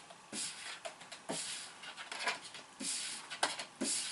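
Tarot cards being handled and shuffled on a table: an irregular run of short papery swishes and soft slaps, a few every second.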